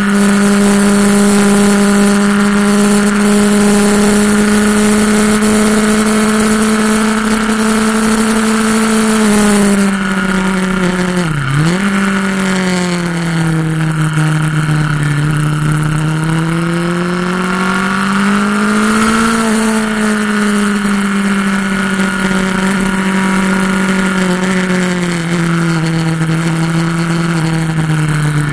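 Onboard motorcycle engine running hard on track, its note held steady for several seconds, then easing, dropping sharply and picking up again about eleven seconds in, rising once more near twenty seconds and sinking slowly toward the end. Wind rushes over the microphone, loudest in the first ten seconds and again around twenty seconds.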